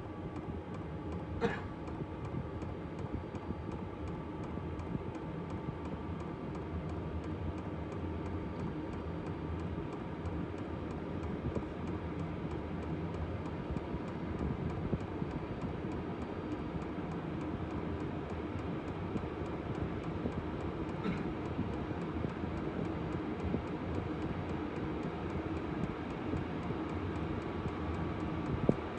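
Chinese diesel air heater running: a steady drone from its blower and burner with a faint steady whine over it, and a sharp click about a second and a half in.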